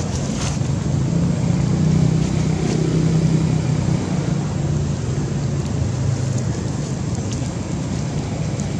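A low engine drone, like a passing motor vehicle, over steady outdoor background noise. It grows louder about a second in, then eases off after a few seconds.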